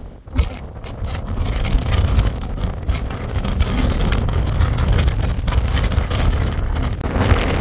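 Gale-force wind buffeting the microphone: a loud low rumble that rises and falls in gusts.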